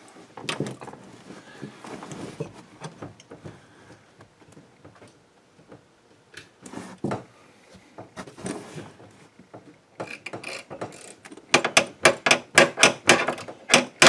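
Rustling and light knocks of hands working under a car's headliner. From about ten seconds in, a 1/4-inch ratchet with a 10 mm socket clicks rapidly and repeatedly while tightening the bolt that holds a roof-mounted antenna base.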